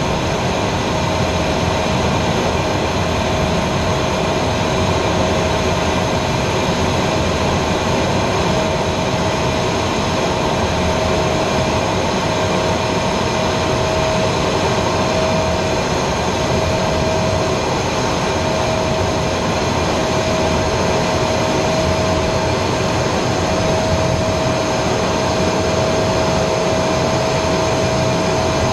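Cockpit noise of an Aero L-29 Delfín jet trainer in flight: the single turbojet engine and the rushing airflow make a loud, steady roar with a constant whine.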